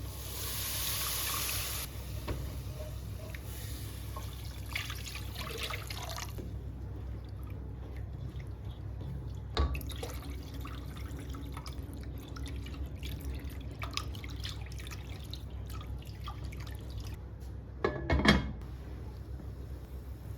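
Water running briefly at a sink, then dripping, followed by scattered light clicks and knocks and a louder clatter of several strikes near the end.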